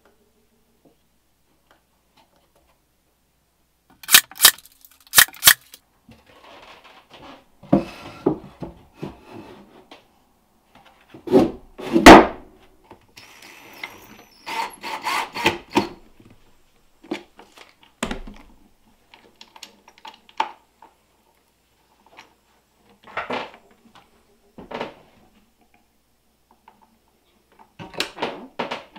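Woodworking assembly sounds on a wooden crate: a run of sharp clicks, then wood knocking and rubbing, the loudest being a heavy knock about halfway through. A cordless drill drives screws briefly, and a light metal chain rattles near the end.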